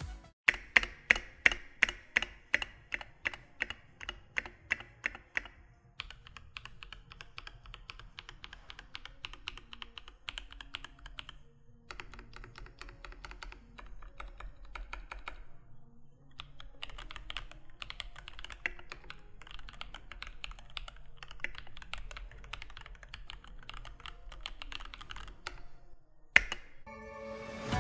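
Keychron K8 Pro mechanical keyboard with Keychron K Pro Banana tactile switches being typed on. For the first few seconds single keys are struck one at a time, about three a second. Then comes fast continuous typing with two short pauses, and one loud keystroke near the end.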